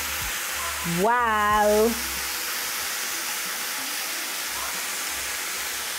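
Spiced, oiled chicken breast strips sizzling steadily as they sear on a very hot grill pan over a medium-high flame.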